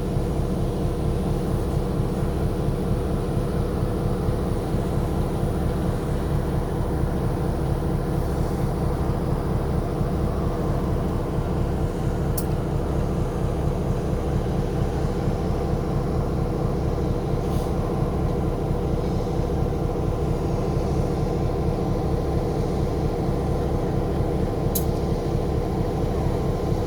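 An engine running steadily at an even speed, with a regular low pulse, and a few faint clicks.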